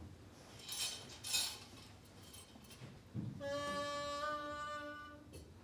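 Two brief noises about a second in, then a single held musical note lasting nearly two seconds, part of it stepping in pitch about halfway through.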